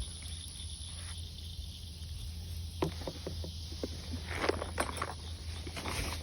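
Irregular rustling and crackling that starts about three seconds in and thickens around the middle, over a steady low hum.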